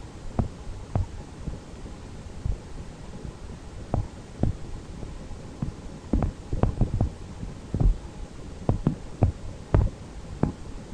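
Irregular low thumps and bumps over a steady low rumble, the handling noise of a camera carried by hand.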